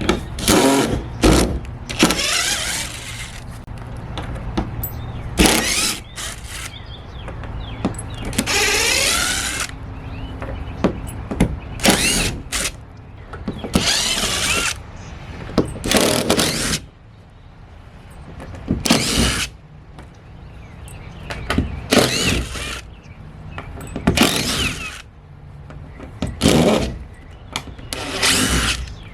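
Cordless drill backing screws out in short runs of about a second each, spinning up and down, about a dozen times with pauses between.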